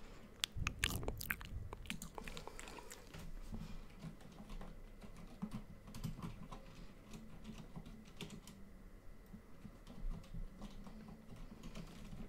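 Irregular clicking and tapping of computer keys, typing, with a few louder knocks in the first couple of seconds.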